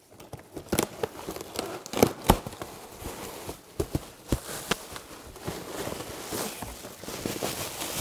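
Cardboard shipping box being opened by hand: packing tape pulled off and flaps rustling, then plastic air-cushion packing crinkling as it is lifted out, with many irregular clicks and rustles.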